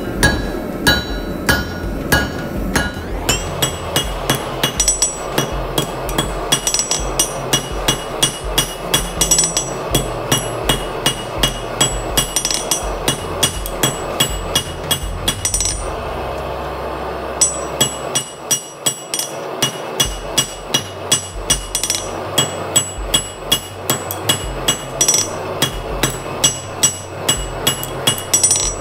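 Blacksmith's hammer striking red-hot 1/4 by 1 1/4 inch flat steel bar on an anvil in a rapid series of blows, each with a ringing note from the anvil. The blows pause briefly a little past the middle, then resume.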